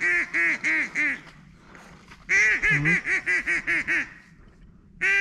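Duck call blown in runs of quick, even quacks, about six a second, with short pauses between the runs: a hail or greeting call to bring circling mallards in to land.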